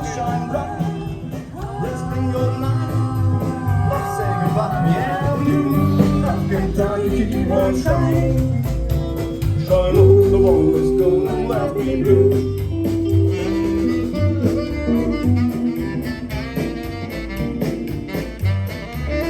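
Band music, an instrumental passage in a blues or rock-and-roll style with a moving bass line and held melody notes.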